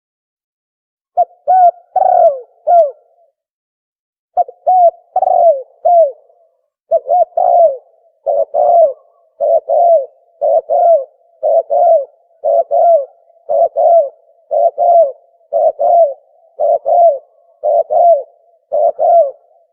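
Recorded call of a tukmo (spotted dove) played back as a hunting lure: short cooing notes, each rising then falling in pitch. After about a second of silence come two phrases of about four coos each, then from about a third of the way in, coos in pairs repeating about once a second.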